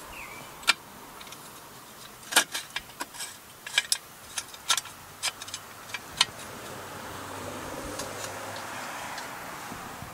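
Irregular metallic clicks and clinks as the muffler's mounting bolts are fitted and started by hand on a small Briggs & Stratton mower engine. The clicking stops about six seconds in.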